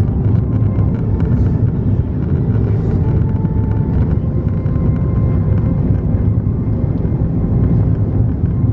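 Cabin noise inside an Airbus A330-300 airliner on approach to land with flaps extended: a loud, steady low rumble of engines and airflow with a faint whine over it.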